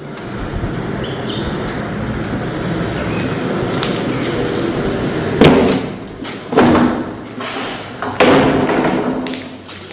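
Recorded footage of an assembly building being vandalised: a steady noisy din, then three loud heavy bangs about five and a half, six and a half and eight seconds in, each ringing on briefly.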